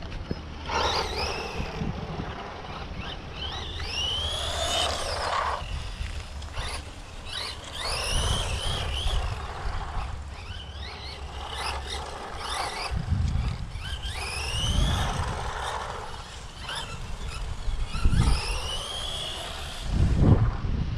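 ZD Racing Rocket DTK16 1/16 brushless RC truck's electric motor whining in repeated bursts of throttle, the pitch rising with each acceleration, with a rush of noise as it runs on asphalt.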